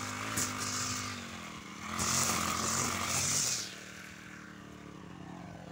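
Petrol brush cutter with a nylon line head running at speed, the line whipping through grass in several hissing sweeps. A little before the four-second mark the engine is throttled back and drops to a lower, quieter idle.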